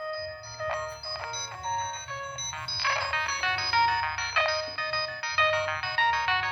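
Polyphonic ringtone from a Nokia 6585i mobile phone, playing a quick melody of short notes with a few drum-like hits and no bass, through the phone's small speaker.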